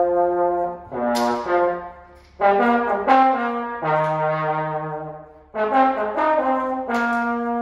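Valve trombone playing a run of held notes in its lower-middle register, in four phrases with short breaks between them.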